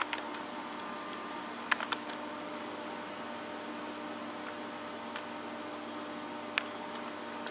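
Steady hum and hiss of running reef-aquarium equipment such as pumps and filtration, with a quick cluster of sharp clicks about two seconds in and one more click near the end.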